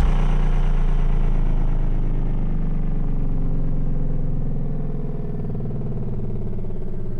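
Breakdown in an electronic dance music mix: the kick drum drops out at the start, leaving a sustained low synth bass and pad that slowly fades.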